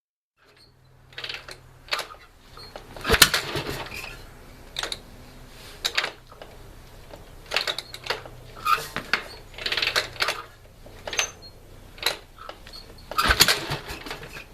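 1965 Harley-Davidson XLCH Sportster being tried for a start: irregular sharp mechanical clanks and pops, roughly one a second, over a faint steady low hum. The loudest come about three seconds in and near the end.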